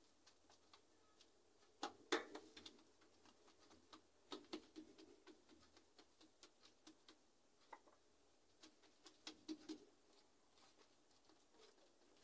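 Faint, scattered taps and soft slaps of hands pressing and rolling oiled melwi dough on a marble countertop. The loudest taps come about two seconds in, with smaller clusters a few seconds later and near the end, over near silence.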